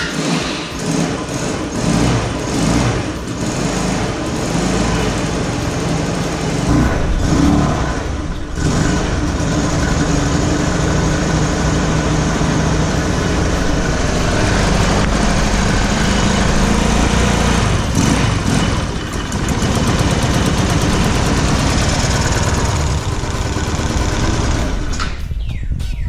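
A 150cc GY6 scooter's single-cylinder four-stroke engine runs unevenly just after starting, its revs rising and falling; the engine starts but won't settle into an idle. It cuts off near the end.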